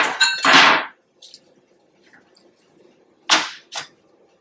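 Disposable aluminium foil pan crinkling and rattling as it is set down on a wooden cutting board. A little over three seconds in come two short crinkles, half a second apart, as chicken wings are laid into the pan.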